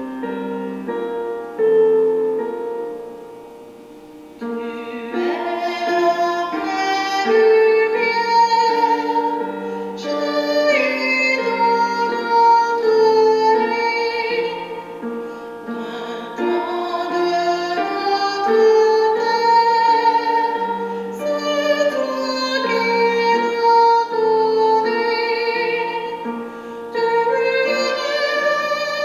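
Closing hymn: a woman's voice singing with vibrato over keyboard accompaniment. The keyboard plays alone at first, and the singing comes in about five seconds in.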